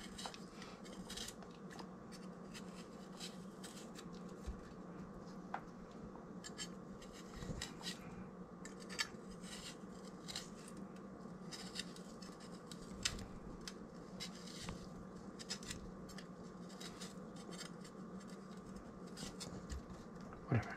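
Chef's knife slicing a green olive held in the hand: faint, irregular crisp cuts and scrapes, a few a second.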